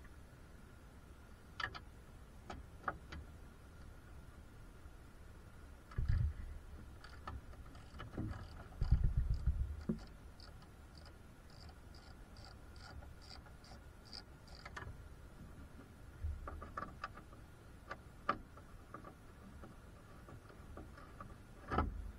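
Hands working on a car with tools and parts: scattered clicks and knocks, low thumps about six and nine seconds in, and a run of even ticks, a little over two a second, from about seven to fifteen seconds in.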